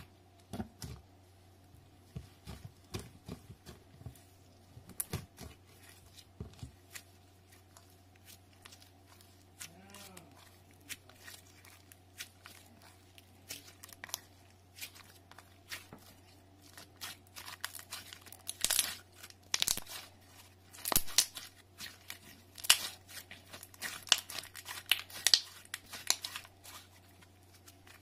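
Clear slime mixed with sand being squished, folded and stretched by hand, giving off irregular sticky crackles and small pops. The crackles are sparse at first and come thicker and louder in the second half.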